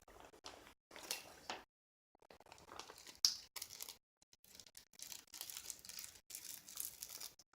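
Faint, intermittent rustling and crinkling from items being handled, with a few light clicks and one sharper tap about three seconds in.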